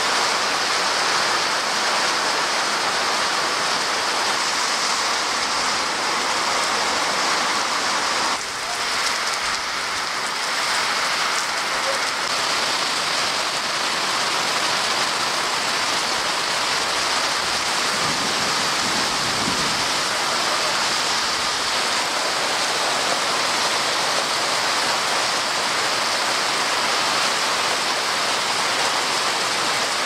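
Heavy tropical rain falling steadily on orchard trees and broad leaves, an even hiss with a brief dip about eight seconds in.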